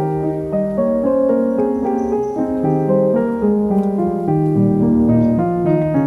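Background instrumental music: a keyboard melody of notes changing in steps, a few a second, over lower held notes.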